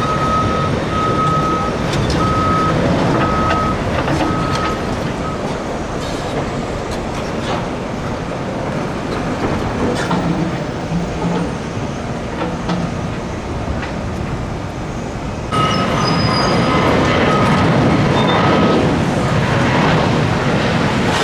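Construction machinery working, a bulldozer among it: steady engine and track noise under the repeated on-off beeping of a reversing alarm. The beeping stops a few seconds in; about 15 s in the noise jumps louder and the beeping starts again for a few seconds.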